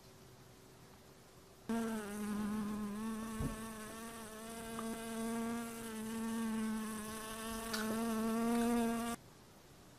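A fly buzzing in flight, a steady buzz that swells and fades a little. It starts suddenly about two seconds in and cuts off suddenly near the end.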